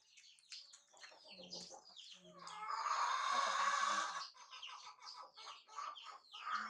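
Animal calls: rapid high chirps repeat throughout, and a loud, harsh call lasting about a second and a half comes in the middle.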